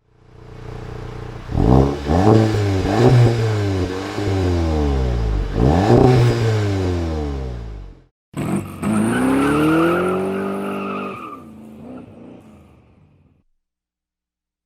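Volkswagen Golf GTI's 2.0-litre turbocharged petrol engine and exhaust being revved in several quick blips, pitch rising and falling each time. After a sudden break about eight seconds in, one more rev swells and falls away, fading out a second or so before the end.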